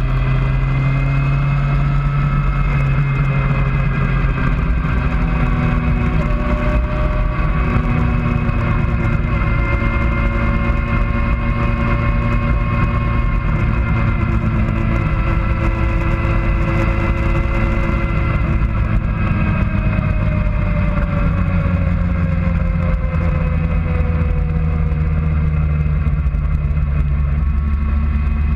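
Motorcycle engine heard onboard from the bike itself, running at low revs at slow road speed, its pitch drifting gently up and down with no hard revving.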